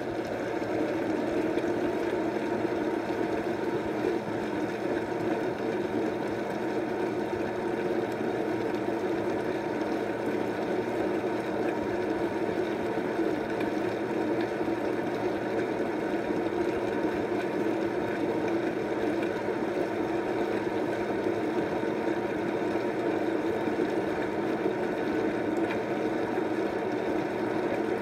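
Youngyangwang baby-food porridge maker running with a steady motor whir as its blade grinds the food inside.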